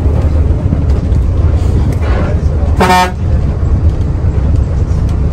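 Steady low rumble of a diesel bus running on a dirt road, with one short horn toot about three seconds in.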